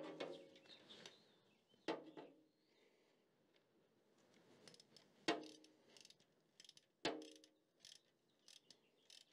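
Socket wrench tightening two bolts inside a tractor's hydraulic quadrant housing: four sharp metallic clinks of tool on bolt and housing, spread over several seconds, with faint ratchet-like ticking between the later ones.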